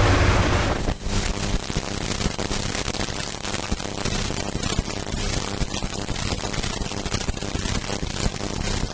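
Steady hiss of static with a faint low hum, starting about a second in when the sound cuts over from the louder studio audio.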